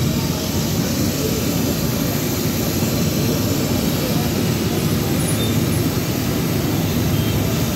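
Steady low roar of a gas-fired deep fryer cooking French fries.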